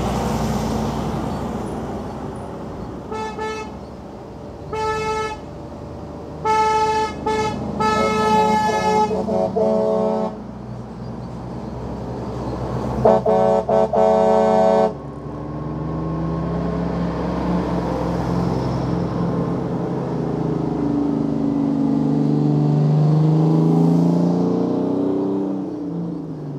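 Truck air horns sounded in a string of blasts, short ones about three and five seconds in, a longer run from about six to ten seconds, and a last long blast around thirteen to fifteen seconds. Beneath and after them, diesel engines of heavy trucks driving past, their pitch rising and falling in the second half.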